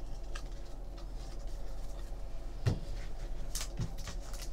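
Soft knocks on the tabletop about two and a half and nearly four seconds in, then crinkling of a foil trading-card pack as a hand picks it up from the stack, over a steady low hum.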